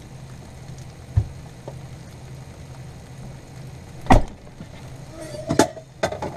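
Shredded cheese frying in a nonstick pan, a faint sizzle over a low steady hum. Sharp knocks of dishes being handled cut in: one about a second in, a loud one about four seconds in, and a few more near the end.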